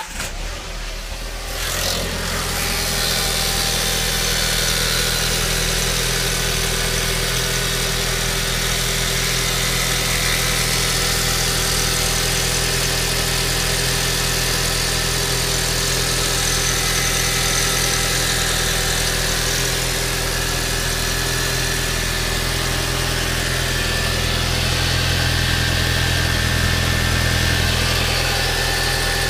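Volkswagen-Audi 1.8T turbocharged four-cylinder engine idling steadily after a fresh start, settling in over the first two seconds. It carries a noise that the owner finds strange.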